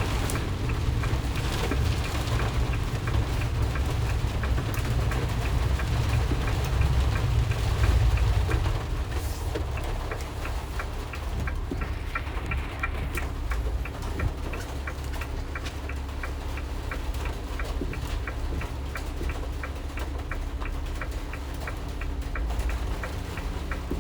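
Inside the cab of a 2020 RAM Promaster van driving in heavy rain: road and engine rumble with rain on the body, easing off about eight seconds in. From about ten seconds in, a regular ticking joins it, like a turn-signal indicator clicking.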